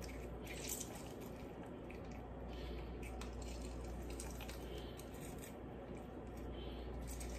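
A lemon being squeezed by hand: faint squishing and juice dripping into a container, with a few soft ticks.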